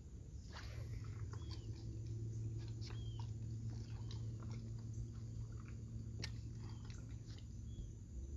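A low electric motor hum, typical of a bass boat's trolling motor, steady from about a second in, with scattered light clicks and a few short high chirps over it.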